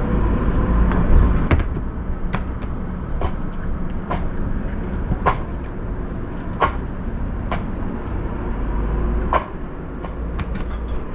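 Strong wind rumbling on the microphone, with sharp taps about once a second from a bird's beak pecking at a feed bowl.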